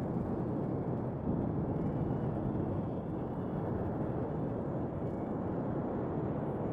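Designed sci-fi alien-planet ambience: a steady, low, noisy drone with no distinct calls or events.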